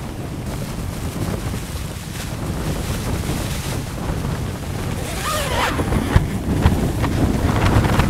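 Blizzard wind buffeting a small dome tent, heard from inside: a steady low rumble of wind with sharp snaps and flaps of the tent fabric. It grows louder in the second half.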